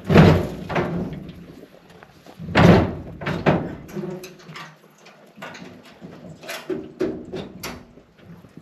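Thumps and knocks from a three-wheeler being secured on a small open utility trailer: two loud thumps about two and a half seconds apart, then a run of lighter knocks and clicks.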